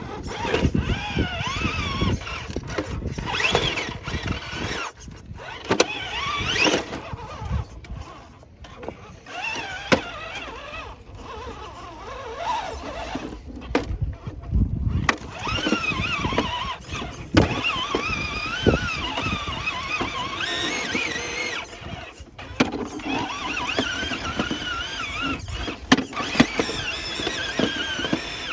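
Electric motor and gearbox of a radio-controlled scale rock crawler whining, rising and falling in pitch as the throttle is worked, with scattered knocks and clatter as the rig climbs over the course.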